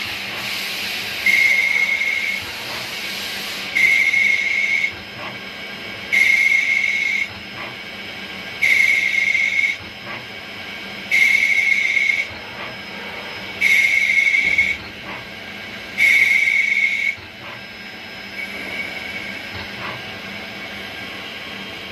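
CNC machine working a brass part in a repeating cycle: about one-second bursts of a high steady whistle with hiss, coming roughly every two and a half seconds, with light clicks between them. The last burst is fainter.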